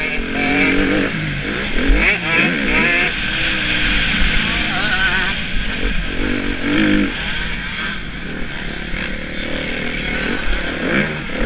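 Suzuki RM-Z250 four-stroke single-cylinder motocross engine revving hard and falling back as the rider works the throttle and gears, its pitch repeatedly rising and falling.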